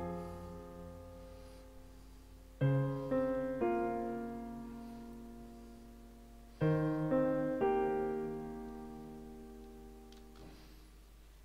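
Software piano in FL Studio playing back a short MIDI chord phrase: a chord fading at first, then two groups of three quickly staggered chord attacks, about two and a half seconds in and again about six and a half seconds in, each held and slowly dying away.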